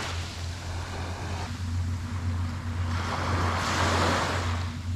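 Small waves washing up onto a sandy, pebbly shore, one wave swelling and breaking about three and a half seconds in, over a steady low wind rumble on the microphone.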